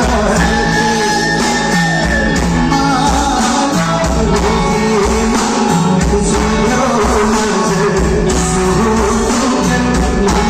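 Live rock band playing a song at full volume with drums, bass, electric guitar and a sung or lead melody line that glides in pitch.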